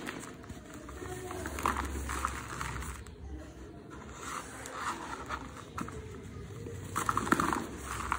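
Dry cement blocks crumbled and rubbed between bare hands, with gritty crunching and scraping as the powder sifts down; the loudest crumble comes near the end.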